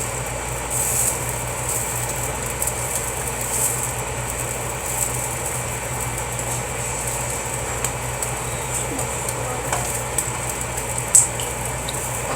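Sausages sizzling and crackling in a frying pan over a steady low hum, with one sharp click near the end.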